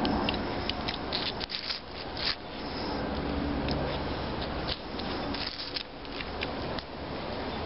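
Small knife blade scraping and cutting the prickly leaves off a thistle stalk: a run of irregular short scrapes and leaf rustles.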